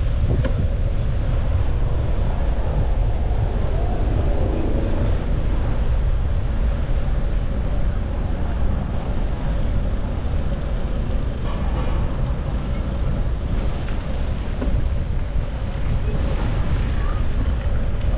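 Wind buffeting the microphone of a camera on a moving bicycle, a steady low rumble, with faint voices of passers-by now and then.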